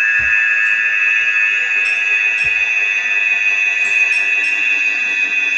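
A loud, steady, high-pitched electronic tone, alarm-like, held without a break or change in pitch.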